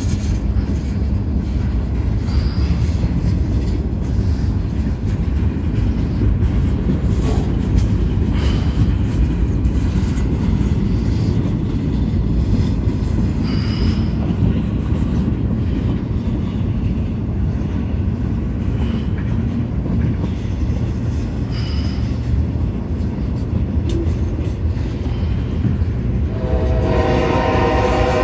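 Freight cars of a long train rolling past on the rails: a steady low rumble, with a few brief high squeals from the wheels. About 26 seconds in, a distant locomotive horn begins sounding a chord as an oncoming northbound train approaches.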